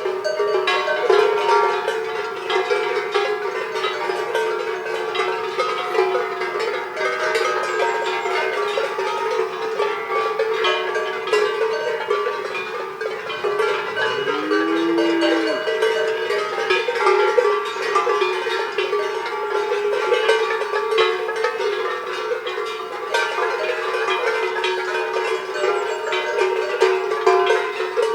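Many cowbells on a herd of cows clanking continuously and unevenly as the animals move. About halfway through a single cow moos once, a low call that rises in pitch and then holds.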